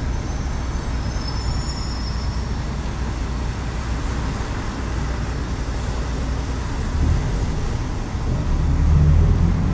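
City bus riding on the road, heard from inside the cabin: a steady low rumble of engine and tyres that grows louder near the end.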